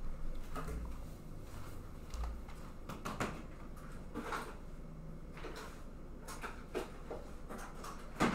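Faint, scattered light knocks and rustles of objects being handled and moved about, over a steady low hum.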